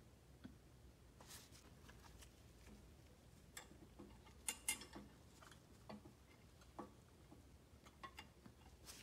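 Faint small clicks and taps as a thin side rod is fitted onto the crank pins of an antique toy locomotive's spoked wheels, a loose handful of them with the loudest cluster about halfway through.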